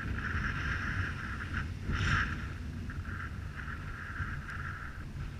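Wind buffeting the microphone of a helmet-mounted action camera: a steady low rumble with a higher hiss that swells briefly about two seconds in.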